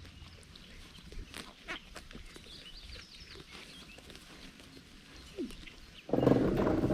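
A Shetland sheep bleats once, loud and just under a second long, near the end, over faint scattered clicks and rustles.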